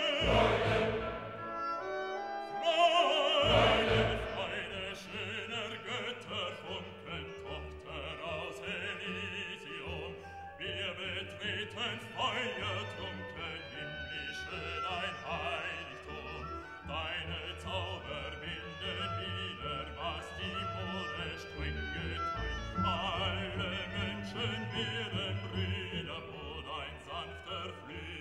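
Classical music: an operatic voice singing over orchestral accompaniment.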